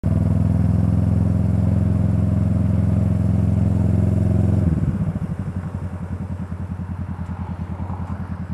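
Kawasaki motorcycle engine running at a steady cruise. Nearly five seconds in, the throttle closes and the note drops away to a quieter, evenly pulsing tickover as the bike slows for the lights.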